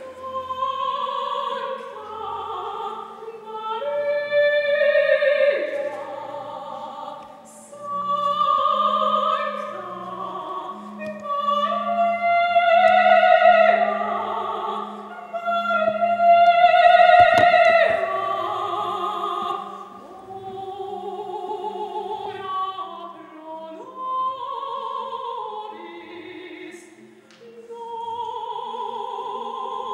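A man singing solo in operatic style, holding long notes with vibrato, over a steady low organ accompaniment.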